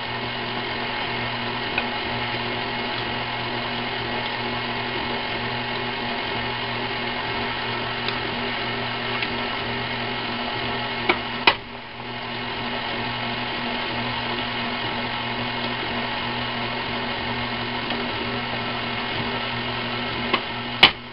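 Electric stand mixer running at a steady speed, beating creamed butter and brown sugar as eggs are added one at a time. Sharp clicks come a little past halfway and again at the end, each followed by a brief drop in the motor sound.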